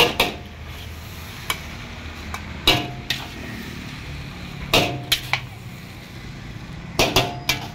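Long steel ladle clanking against a large iron wok as stir-fried noodles are tossed: sharp metallic knocks with a short ring every second or two, some in quick runs of two or three, over a steady low rumble.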